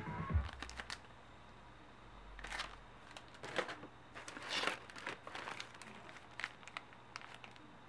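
Clear plastic packing and bagged parts crinkling and rustling while being handled in a cardboard box, as a series of short, scattered crackles.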